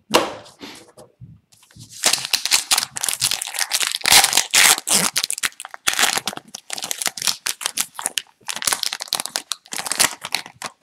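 Foil wrapper of an Upper Deck hockey card pack crinkling and tearing as it is torn open by hand. A sharp crackle comes right at the start, then dense, irregular crinkling from about two seconds in.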